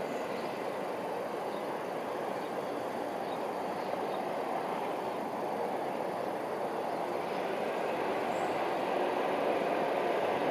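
Steady, distant rumble of vehicle traffic, growing slightly louder in the last few seconds.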